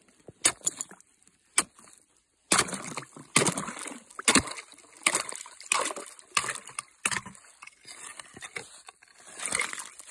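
Wooden stick jabbed and stirred in a chopped hole in lake ice, with irregular knocks on the ice and sloshing through slush and water as the hole is cleared to get water. The strokes come sparsely at first, then thicker from about two and a half seconds in.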